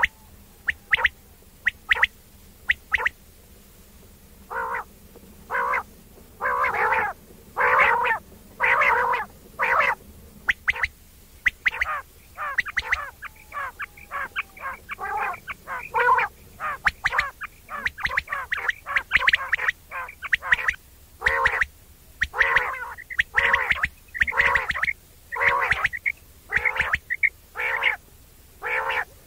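Quail calling over and over in short, clipped notes, often in quick runs of two or three. The calls come more thickly from the middle onward.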